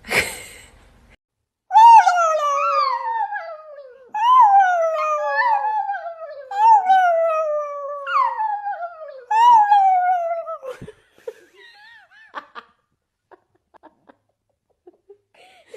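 Chihuahua howling: a run of long, wavering howls over about nine seconds, each one sliding down in pitch, followed by a few faint clicks.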